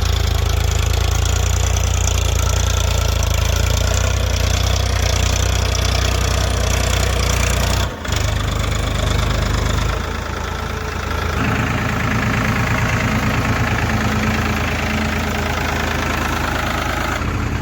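Diesel engine running steadily, with a short break about eight seconds in; after about ten seconds the deep rumble eases and a higher hum takes over.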